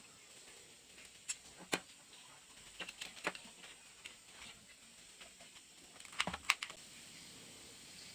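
Scattered light clicks and taps from handling a small plastic car phone charger and its USB cable, with a few sharp clicks near the start and the loudest cluster a little past the middle.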